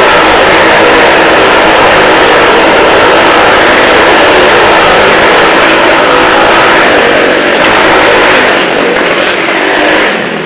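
Loud motorcycle engines running inside a steel-mesh globe of death, the sound dropping away near the end.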